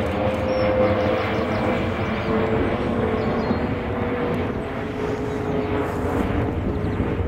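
Steady engine rumble with a slowly falling whine.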